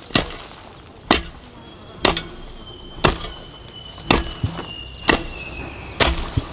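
Hoe blade chopping into hard soil, a sharp thud about once a second, seven strokes in all.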